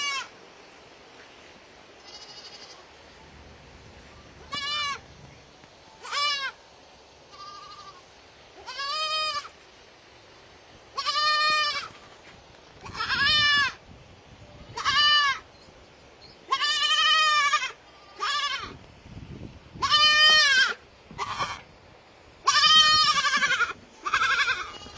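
Baby goats bleating: about fifteen separate calls, some short and some drawn out, coming every one to two seconds, a few of them fainter.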